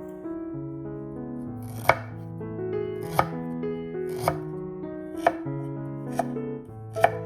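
Knife chopping on a cutting board: six sharp single strokes about a second apart, over gentle background piano music.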